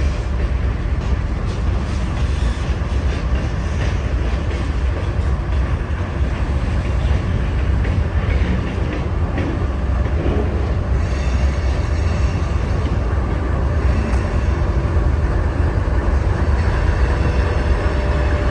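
GE diesel-electric locomotive engine idling, a steady deep rumble. A faint high whine joins about eleven seconds in.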